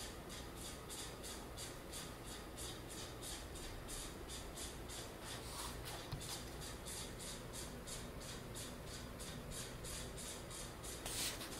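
Faint background noise with a high hiss that pulses evenly about three times a second, and a few small clicks near the end.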